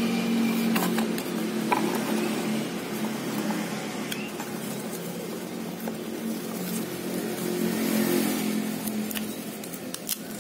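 Cardboard box being opened and a foam-wrapped electronics unit handled, with a few short clicks and rustles, over a steady low mechanical drone.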